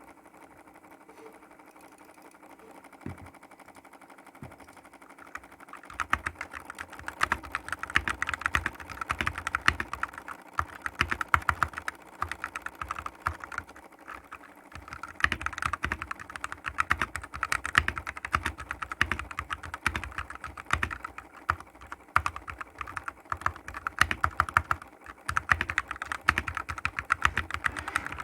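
Tecware B68 mechanical keyboard with Gateron Yellow switches being typed on. A few scattered keystrokes come first, then about six seconds in steady fast typing starts and carries on throughout.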